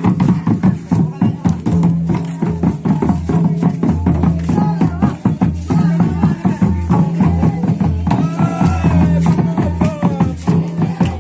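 Live Santhali dong dance music: fast, dense drumming over a steady low note, with a melody line rising and falling about three quarters of the way through.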